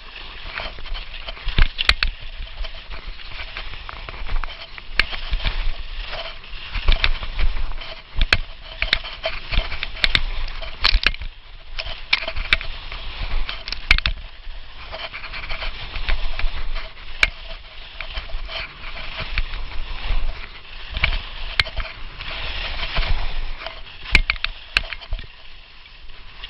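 Rossignol alpine skis carving on snow: a loud scraping hiss that swells and fades with each turn, with frequent sharp clicks and knocks throughout.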